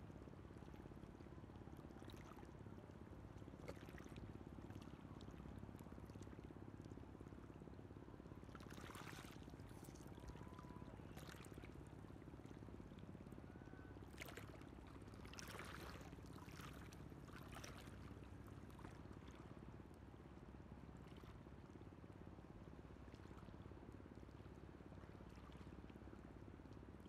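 Faint shallow seawater lapping, with a few brief splashes in the middle stretch.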